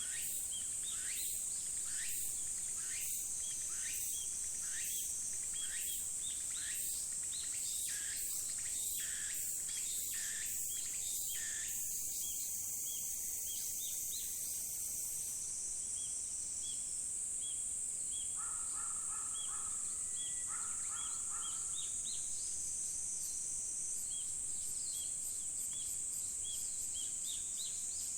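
Insects and birds in a natural setting: a steady high-pitched insect chorus with short, rhythmic chirping calls about once a second, and a brief lower call repeated twice a little past the middle.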